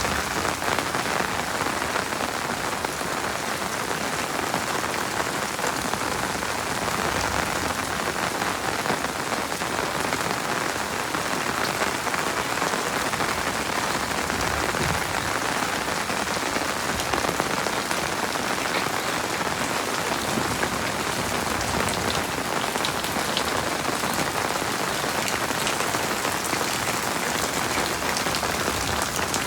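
Heavy rain falling steadily: an even hiss of many drops, with scattered sharper drips.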